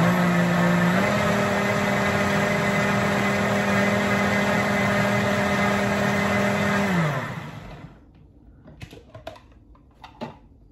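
Vitamix blender motor blending a protein shake: it steps up in speed about a second in, runs steadily, then is switched off and winds down with a falling pitch about seven seconds in. A few light knocks follow as the jar is handled.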